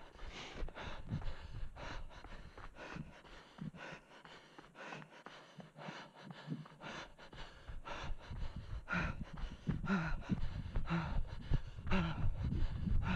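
A runner's hard breathing, gasping about twice a second in time with his strides, with footfalls on a dirt forest path, close to a head-mounted camera. It grows louder from about eight seconds in.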